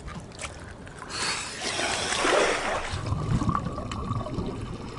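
A rushing noise that swells about a second in and dies away about two seconds later, over a low rumble.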